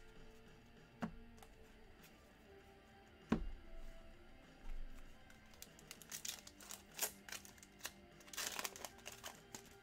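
Wrapper of a football trading-card pack crinkling and tearing as it is ripped open, a quick run of crackles in the second half. A sharp knock comes about a second in and a louder one after about three seconds, with faint background music throughout.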